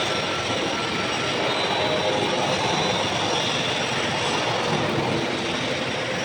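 Electric welding arc running steadily on a steel container frame: an even, continuous noise with no breaks.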